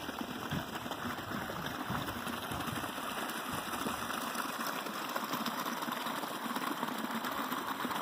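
Small mountain creek running and splashing over rocks, a steady rush that grows a little louder in the second half. Low irregular thumps sound under it in the first half.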